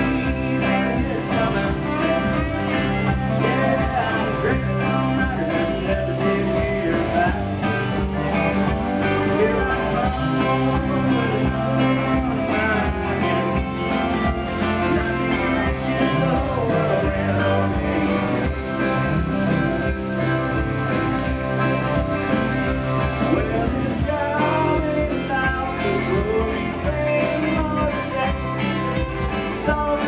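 Live country band playing an instrumental stretch: electric and acoustic guitars with steel guitar over a steady beat.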